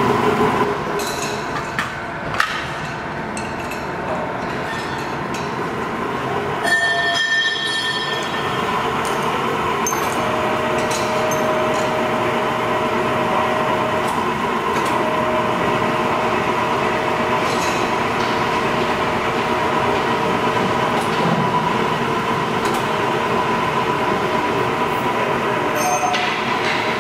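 Aronson welding positioner running under power: its electric drive motor and gearing hum and whine steadily as the table tilts, with a steady tone coming in about ten seconds in.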